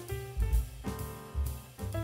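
Background instrumental music with held notes over a steady drum beat.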